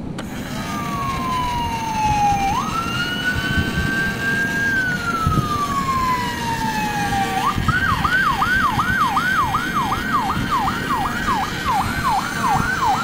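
Electronic siren from a battery-powered toy ambulance's small speaker, just switched on: a slow wail falling and rising in pitch for about seven seconds, then switching to a fast yelp of about two sweeps a second.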